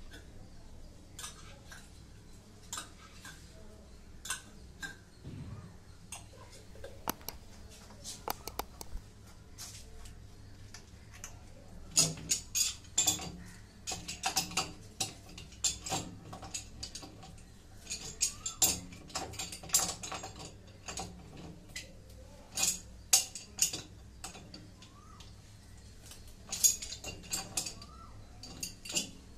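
A metal wrench clinking and scraping against a brass pipe fitting as it is gripped and worked, in sharp clicks that are sparse at first and come in quick clusters from about twelve seconds in.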